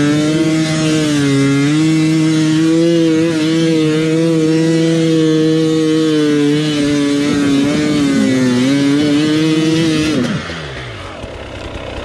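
Dirt bike engine running at high revs, its pitch wavering slightly as the throttle is worked. About ten seconds in, the revs fall off sharply and the engine drops to a lower, quieter note.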